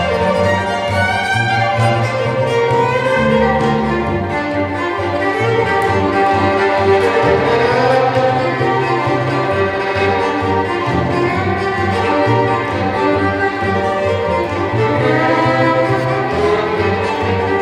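Violin playing an Irish-style fiddle tune, a fast line of notes, over a double bass accompaniment.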